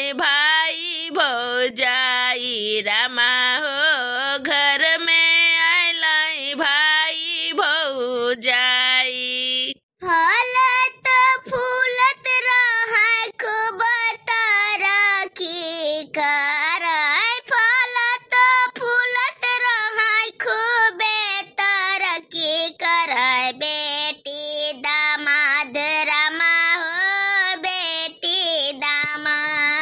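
A high woman's voice singing a Bhojpuri folk song that welcomes the daughter and son-in-law home, in long held and gliding notes, with a short break about ten seconds in.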